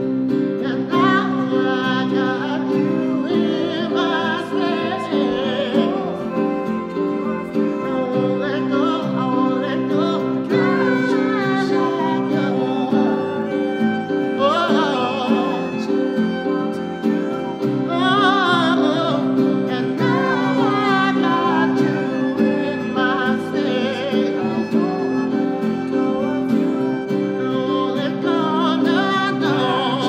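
Male voices singing a slow pop song, accompanied by violin, strummed acoustic guitar and electronic keyboard.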